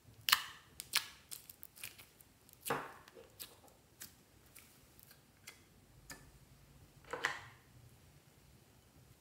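Clear slime being handled, peeled out of a plastic dish and laid in a glass tray: scattered sharp sticky clicks and snaps, with two louder smacks, one a little under three seconds in and one about seven seconds in.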